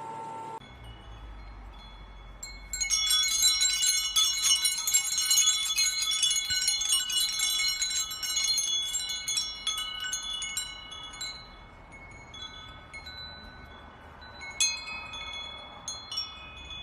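Chimes ringing, many struck together in a dense, jangling cluster from about three seconds in, thinning out, then a few fresh strikes near the end.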